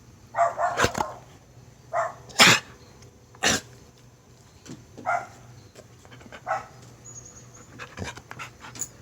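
Dog coughing: a quick run of coughs about half a second in, then single coughs every second or so, the loudest about two and a half seconds in.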